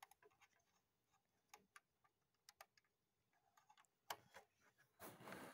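Faint scattered clicks and ticks of hands handling the cables and connectors at the back of a CCTV XVR recorder while a USB drive is being plugged in, with a sharper click about four seconds in and a short rubbing handling noise near the end.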